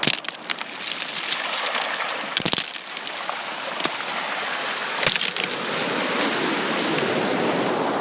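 Ocean surf washing on a beach: a steady hiss of breaking and receding water, with sharp crackling clicks scattered through it, and the wash swelling again in the last couple of seconds.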